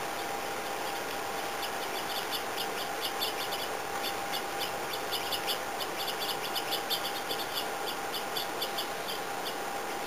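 Small songbirds at a seed feeder giving short, high chirps in a quick irregular run, several a second, starting about a second and a half in and thinning out near the end, over a steady hiss.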